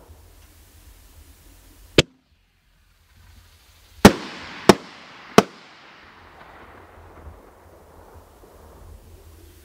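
Consumer artillery shell from the Trilogy kit, a triple-break shell fired from a mortar tube. A single sharp report about two seconds in is the launch. About two seconds later come three loud bangs roughly two-thirds of a second apart, the shell's three breaks, trailing off over several seconds.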